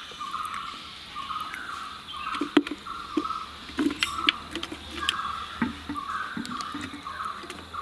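Cut narthangai (citron) pieces dropped by hand into a plastic jar, with a few light knocks and dull thuds as they land. A high chirp repeats about twice a second the whole time.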